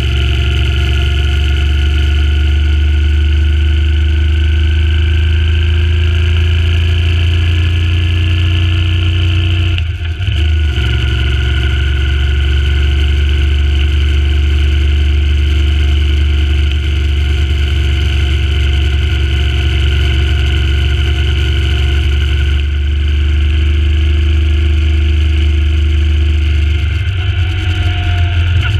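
Suzuki Intruder C800's 805 cc V-twin engine running steadily under way, with a deep drone that briefly drops out about ten seconds in. The engine is still being run in.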